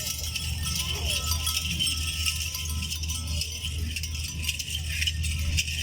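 Small bells jingling in a continuous rattle, as worn by buffalo and cattle walking, over a steady low hum.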